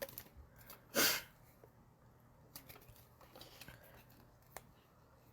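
Faint rustling and small clicks of a torn card-pack wrapper and cards being handled, with one short, sharp burst of noise about a second in.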